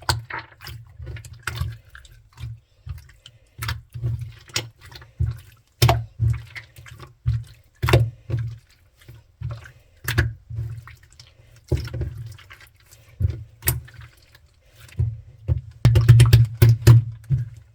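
Clear slime being pressed and stretched by hand, giving irregular wet clicks and pops with a dull low thud under each, coming faster near the end.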